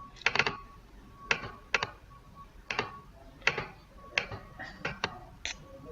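Clicking at a computer: sharp single and doubled clicks, about one every half second to a second, as menus are worked through.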